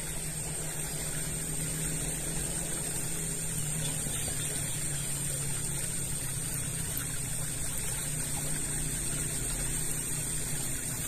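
A steady low hum like a distant motor runs without change under an even wash of background noise. A constant high-pitched whine sits above it.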